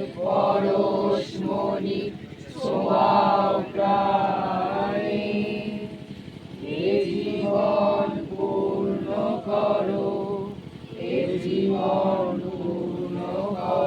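A group of voices singing a chant-like song together in unison, in repeated phrases of a few seconds with short breaks between them.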